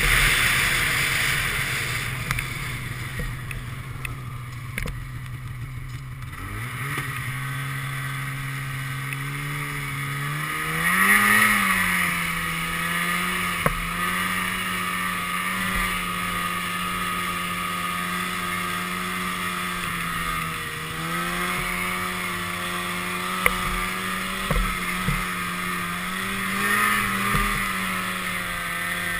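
Snowmobile engine running under way. It holds steady at first, climbs in pitch as it revs up about six seconds in, then runs at a steady pitch, with brief surges near the middle and near the end.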